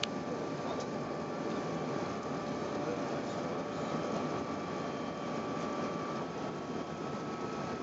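Steady cabin noise inside an Airbus A380 airliner: an even rush of engine and airflow noise with a faint steady whine, and a small click at the very start.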